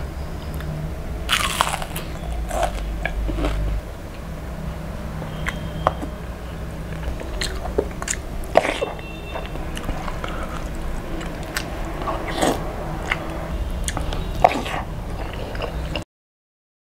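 Close-miked crunching and chewing of crispy deep-fried rohu fish and rice, eaten by hand, with scattered sharp crunches over a steady low hum. The sound stops abruptly near the end.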